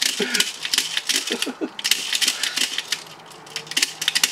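Rapid, irregular light clicking and rattling of small hard parts being handled, pausing briefly about three seconds in.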